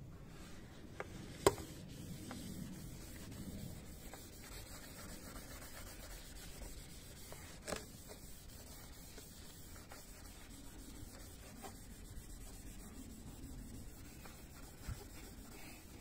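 Wash mitt's mesh face rubbing over a car's side-mirror housing, a steady soft scrubbing. A few sharp knocks cut through it, the loudest about one and a half seconds in.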